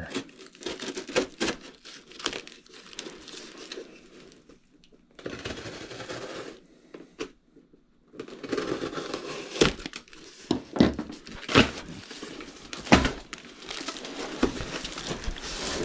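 Shipping packaging being torn open and handled: crinkling and tearing with scraping and sharp clicks, stopping briefly twice.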